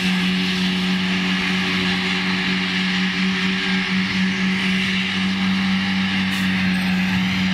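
Tractor running with a Fella front-and-rear mower combination spinning and cutting grass: a steady machine drone with a constant low hum and an even rushing noise above it.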